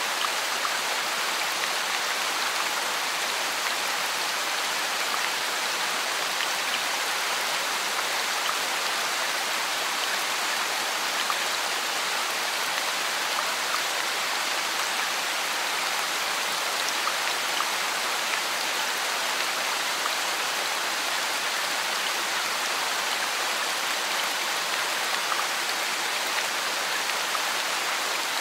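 Steady rain falling, an even hiss of many small drops that holds constant without let-up.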